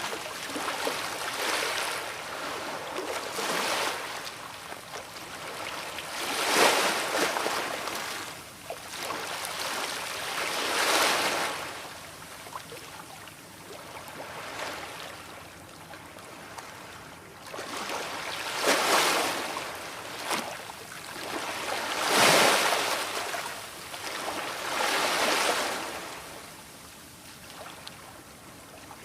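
Sea waves rolling in and washing back, each wave swelling into a loud rush of surf every few seconds with quieter lulls between.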